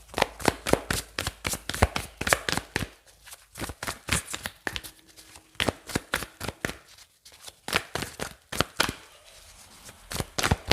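A deck of tarot cards being shuffled by hand: a quick run of sharp card slaps and snaps, broken by a couple of short pauses.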